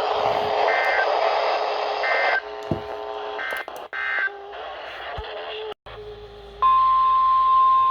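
Weather-radio static broken by several short, chirpy EAS SAME digital data bursts. After a brief dropout, a loud steady single-pitch tone starts about two-thirds of the way through: the NOAA Weather Radio 1050 Hz warning alert tone that opens the next alert.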